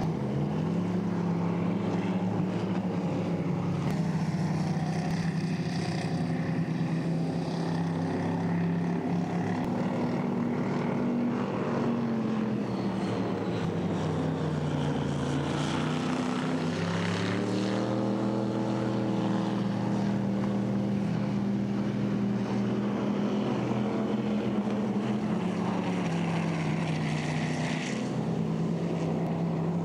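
Race boat engine running steadily. Its pitch drops about halfway through as the throttle comes back, then climbs again a few seconds later.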